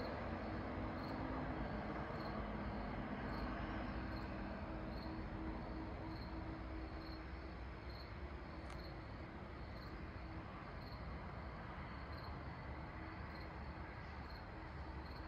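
Night insects, crickets or katydids, chirping in an even pulse of about two chirps a second, over a faint low drone that fades out about halfway through.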